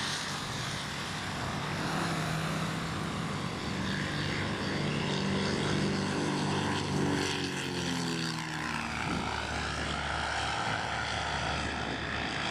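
Propeller aircraft climbing out at takeoff power: a steady engine and propeller drone with a hiss. Its pitch falls about nine seconds in as the plane goes past.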